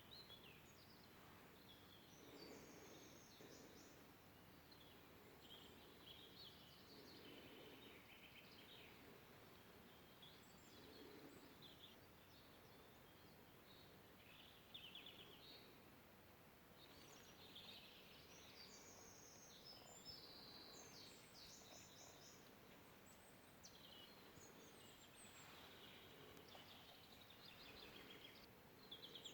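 Faint songbirds calling and singing over a steady background hiss: many short chirps and trills from several birds, coming and going.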